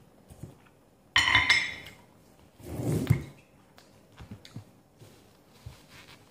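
Ceramic dishes clinking, a small sauce bowl knocked against a plate, with a short ringing. About a second and a half later comes a duller scraping knock of dishware moving on the table.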